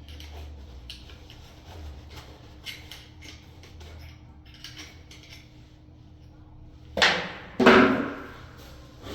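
Tools at work on the bolt hole in a door edge: quiet handling clicks and light taps, then two loud, sharp knocks about half a second apart near the end, each ringing on briefly.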